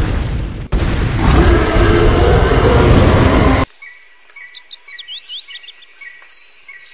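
A loud, rough cartoon T. rex roar that lasts about three and a half seconds and then cuts off suddenly. After it come quieter bird chirps and tweets from a jungle ambience track.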